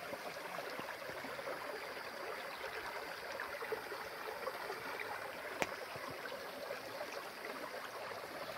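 Creek water running steadily, with a single sharp click a little past halfway.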